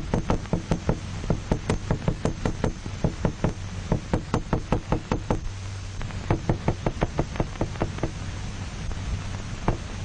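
A small hammer rapping on a tabletop, quick sharp knocks at about five a second in runs broken by short pauses, thinning out near the end. The knocking is the sound stimulus used to test the hearing of an isolated dog's head kept alive on an artificial heart-lung machine.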